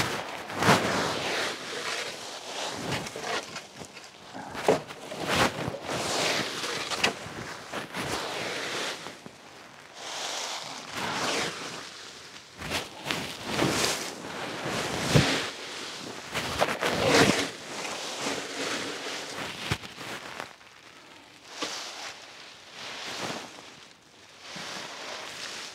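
A rake scraping and rustling through dry leaves and debris, with uneven strokes every second or two.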